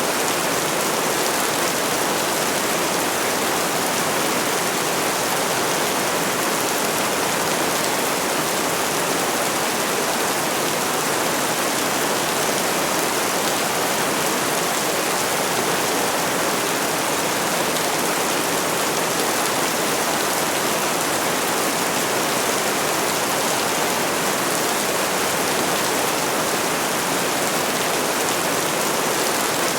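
Heavy rain falling in a steady, even hiss, with no thunder or single drops standing out.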